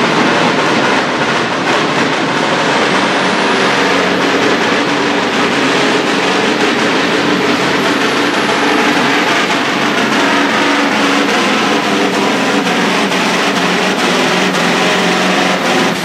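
Scania pulling truck's diesel engine running at full throttle under heavy load as it drags the pulling sled, loud and holding a steady pitch.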